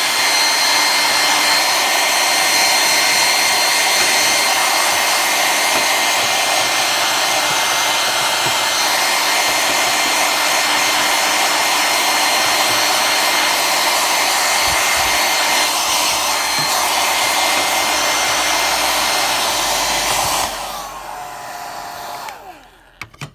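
Handheld hair dryer running steadily with a high whine over rushing air, blowing lint out of a serger. About twenty seconds in it is switched off and the motor winds down with a falling whine.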